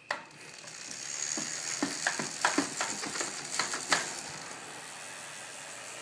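Bicycle wheel being set spinning: a run of separate mechanical clicks over the first few seconds, then a steady whirring hiss as it spins freely.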